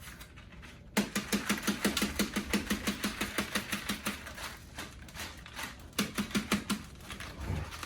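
Dried loofah gourd being shaken, its loose seeds rattling in a fast, even clatter of about seven clicks a second. There is one run of about three seconds starting a second in, and a shorter run near the end.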